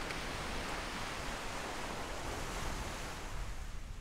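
Small ocean waves breaking and washing up the sand, an even rushing hiss that eases near the end, with wind rumbling on the microphone underneath.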